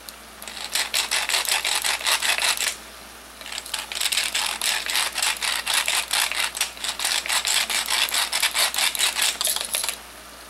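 Wooden pepper mill being twisted by hand, its grinder clicking rapidly as peppercorns are ground: two spells of grinding, with a short break about three seconds in.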